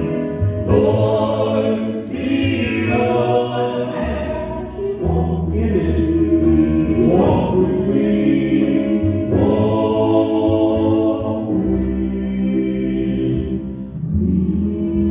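Gospel music: several voices singing together in harmony, with sustained notes over a steady low bass.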